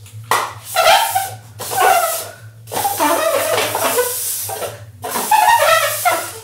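Paper cups being slid and shuffled across a tiled floor, about four scraping strokes of a second or so each. A steady low hum runs underneath.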